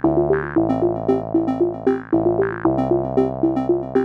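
Upbeat synthesizer music with a bouncy, repeating melody of short notes over a steady beat.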